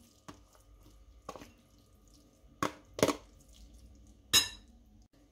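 Metal spoon knocking against a plastic container and a glass salad bowl while sauerkraut is scraped out: about five sharp knocks, the loudest two near the end, the last ringing briefly.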